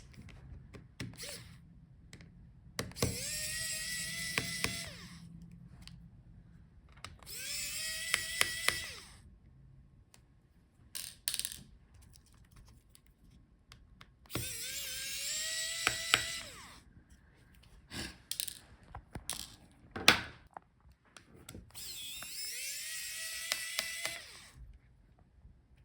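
A small electric screwdriver runs four times, each run a few seconds long, with a steady whine that rises in pitch as it starts. It is backing out the screws that hold a laptop's cooling fans. Light clicks and taps come between the runs.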